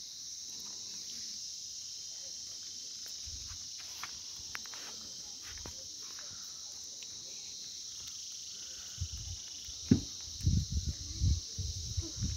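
Steady high-pitched insect chorus. From about nine seconds in, a run of low thuds and bumps, louder than the chorus.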